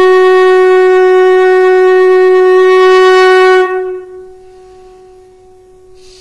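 A conch shell (shankh) blown as a horn: one loud, steady, held note, rich in overtones. A few seconds in it falls away suddenly to a much softer note at the same pitch that carries on.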